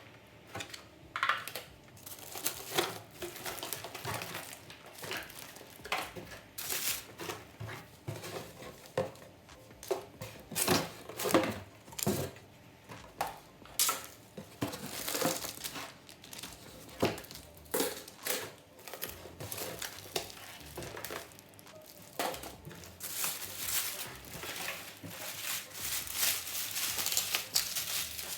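Plastic or paper packaging crinkling and rustling as it is handled, with light irregular knocks and clatter from handled kitchen items.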